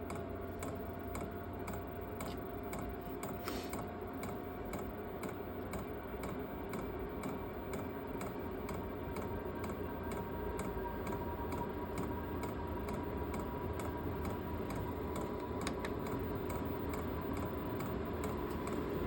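VEVOR 12V diesel air heater starting up: its fuel dosing pump ticks regularly as it pumps fuel, while the blower fan's whine slowly rises in pitch as the fan speeds up.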